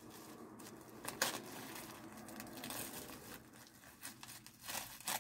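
Tissue paper rustling and crinkling as a package is unwrapped by hand, with a few sharper crinkles: one about a second in and two near the end.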